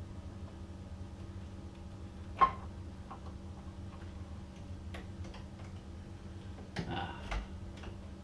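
Small clicks and ticks of hand tools and metal parts at an electrical switch box, over a steady low hum. There is one sharp click about two and a half seconds in, a few faint ticks after it, and a short clatter near the end.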